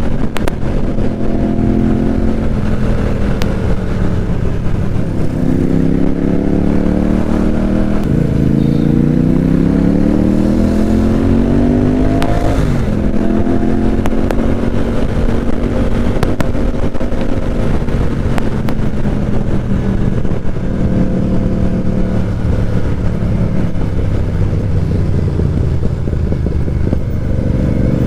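Motorcycle engine and exhaust on the move: the pitch climbs steadily under acceleration for several seconds from about eight seconds in, drops sharply at a gear change, then settles into steady cruising with small rises and falls in revs.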